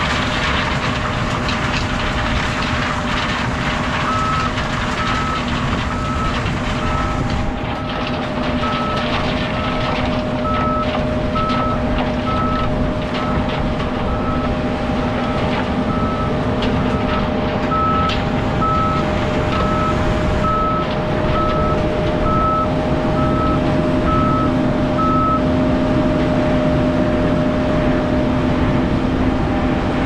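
Heavy farm machinery running steadily with a constant hum, while a high warning beeper sounds about twice a second from about four seconds in until near the end.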